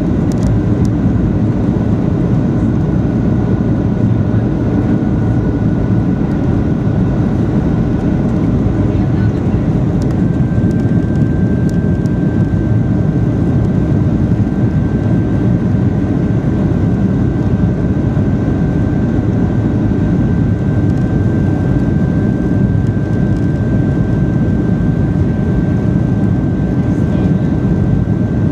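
Steady roar of the CFM56 engines and rushing airflow heard inside a Boeing 737-800 cabin at low altitude, with a thin steady whine that grows stronger about ten seconds in.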